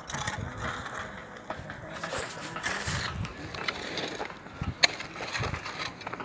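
Site work with hand tools: irregular scraping and scuffing with scattered light knocks, and one sharp click nearly five seconds in.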